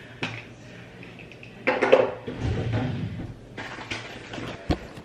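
Toothbrushes and other small hard items clattering as they are set into a holder on a counter: a few separate knocks, the loudest about two seconds in, and a sharp click near the end.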